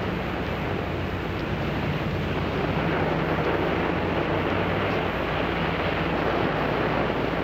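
Steady rushing sea-and-wind ambience with a low, even hum underneath.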